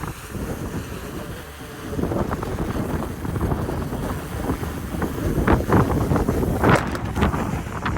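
Strong gusting wind buffeting the microphone. It grows louder about two seconds in, and the heaviest gusts come in the second half.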